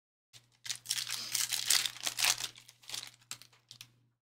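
Foil trading-card pack wrapper being torn open and crinkled: a dense run of crackling and tearing that swells in the middle and fades out just before the end.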